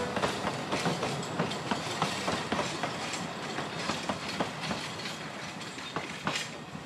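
Narrow-gauge steam train of the Talyllyn Railway passing, its carriage wheels clicking and clattering irregularly on the track. The sound fades steadily as the train moves away.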